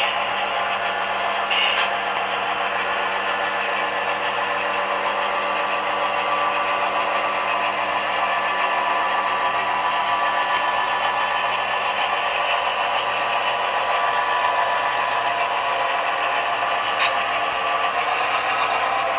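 HO scale model train running on the layout: a steady diesel engine sound from a DCC sound decoder, with the wheels rattling over the track and a few faint clicks.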